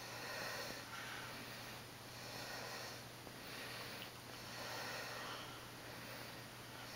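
A person's slow breathing close to the microphone, each breath swelling and fading every second or two, over a low steady hum.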